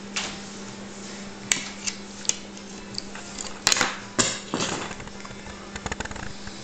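Cutlery clicking and scraping against a plate or bowl as a baby feeds himself, in a dozen or so irregular sharp knocks with the loudest pair around the middle.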